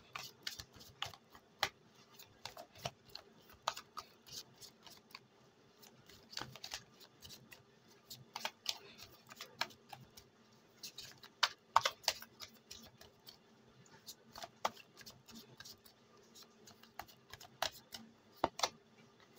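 Tarot cards being shuffled by hand: irregular soft clicks and snaps as cards slide and slap against the deck.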